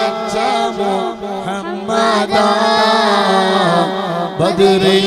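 A male voice singing a Malayalam devotional song of salutations to the Prophet, drawing out one syllable in a long, ornamented melodic run with pitch turns and a held note near the middle.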